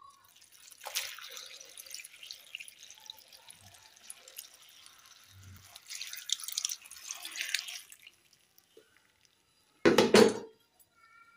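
Water poured from above into a metal pot of chopped bottle gourd pieces, splashing over them for about seven seconds. About ten seconds in comes a brief loud clatter.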